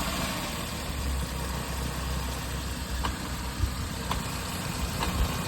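Maruti Suzuki Alto's three-cylinder petrol engine idling steadily with the clutch released, with faint sharp ticks from about three seconds in. The mechanic puts this running noise down to the clutch release bearing: it appears when the clutch is let out and stops when it is pressed.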